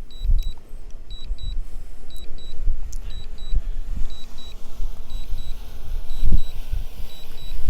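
Strong wind buffeting the microphone in gusty low rumbles, loudest about six seconds in. Over it, a drone remote controller gives a high double beep about once a second: the DJI Mini 3 Pro controller's alert while the drone returns home and lands.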